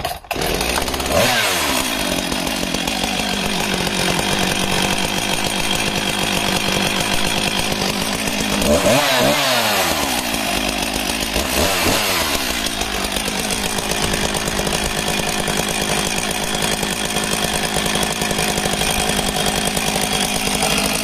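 Husqvarna 254XP two-stroke chainsaw pull-started, catching at once and settling from high revs down to idle. It is revved up and let back down twice, around nine and twelve seconds in, then left idling steadily.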